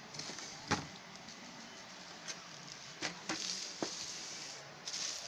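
Handling noises: a sharp knock under a second in and a few lighter clicks and taps against a plastic sewing machine body, with bursts of plastic packaging rustling.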